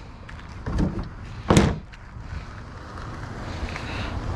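Objects being handled, with a soft knock just under a second in and a louder, sharp clatter about a second and a half in, then a steady low rumble that slowly grows louder.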